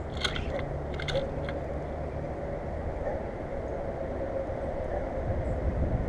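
Starlings and a red-winged blackbird pecking at peanuts and seed on a platform feeder: a few sharp taps and crunches in the first second and a half, over a steady low rumble and a faint hum.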